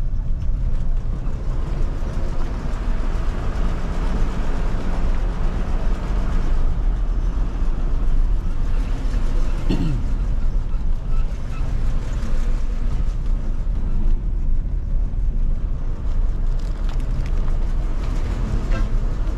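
Jeep engine running steadily under way, a continuous low rumble, with a brief sliding tone about ten seconds in.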